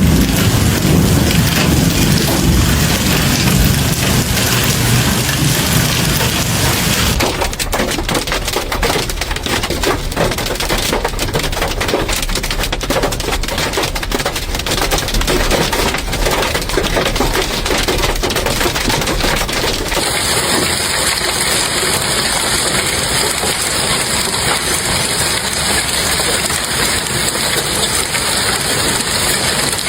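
Hailstorm: hail and rain pounding down on surfaces in a dense, loud patter. The sound changes abruptly about seven seconds in and again about twenty seconds in.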